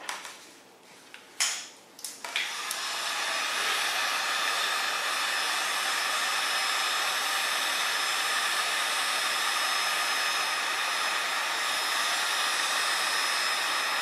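A few handling knocks, then an electric heat gun switches on a little over two seconds in and blows steadily while shrinking heat-shrink tubing over a hose fitting.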